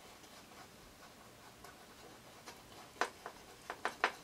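Domed bristle scumbler brush working paint onto a stretched canvas in small circular strokes: faint at first, then a few short, sharper brush strokes from about three seconds in.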